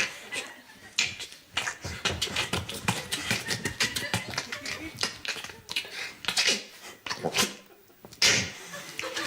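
Vocal sound effects made with a man's mouth and voice into a microphone: a fast run of short clicks, pops and smacking noises with pauses between, and a louder noisy burst about eight seconds in.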